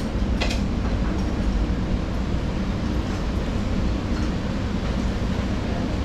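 Steady low rumble of a moving vehicle, with a brief faint click about half a second in.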